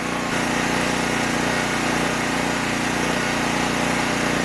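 Triton 3800-watt gasoline modified-sine-wave generator running steadily at its single fixed engine speed, a constant hum with no change in pitch or level.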